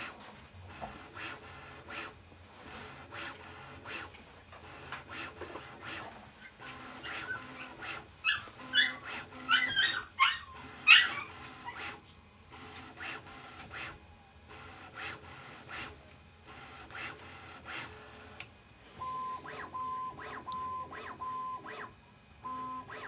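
Bambu Lab A1 Mini 3D printer running its startup calibration: its motors tick and buzz, and near the end they sound a run of short, evenly spaced beeping tones as it tunes itself to run quieter. A dog whines briefly around the middle.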